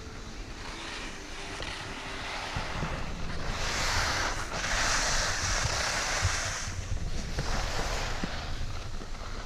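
Wind buffeting the microphone over the hiss of sliding and scraping on packed snow. The hiss grows louder and brighter from about three and a half seconds in until nearly seven seconds.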